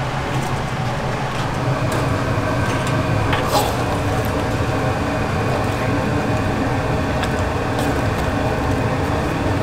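Busy food-stall ambience: a steady low hum with background voices, and a few light clicks.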